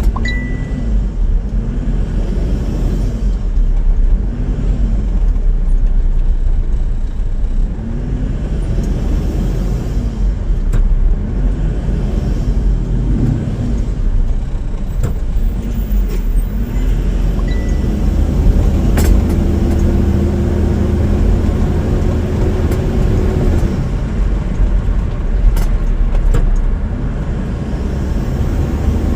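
A motor vehicle being driven, with steady engine and road noise. In the first half a hum swells and fades about every second and a half; from about two-thirds of the way in a steady whine holds.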